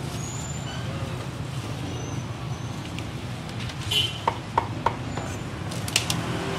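Street ambience with a steady low traffic rumble, broken by a few sharp clicks with short ringing clinks about four seconds in and again near six seconds.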